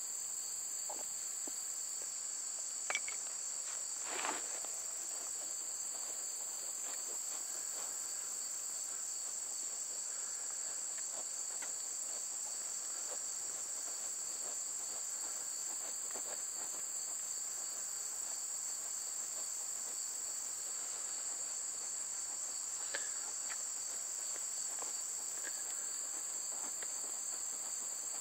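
Steady, high-pitched chorus of insects, with a fine pulsing texture. A single click about three seconds in and a short scrape a second later stand out above it.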